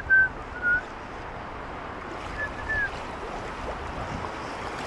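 A person whistling a few short notes of a tune that steps up and down in the first second, then two more notes about two and a half seconds in. Under it runs a steady rush of wind and surf.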